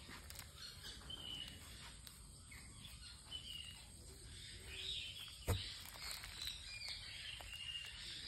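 Faint short bird chirps in the background, repeated several times, over soft rustling as plants in plastic wrapping are handled. A single sharp knock about five and a half seconds in.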